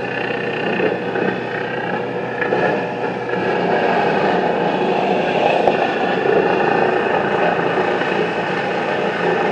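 Engine-driven tree-cutting machinery running steadily, a continuous engine drone with a lowest tone that drops away a few seconds in.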